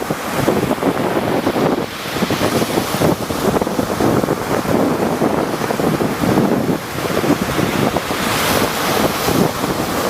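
Rough sea surf: waves breaking and washing in continuous surges, with wind buffeting the microphone.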